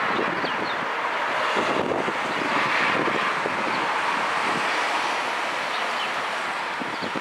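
Wind buffeting the microphone over a steady outdoor rushing noise, with a few faint high chirps.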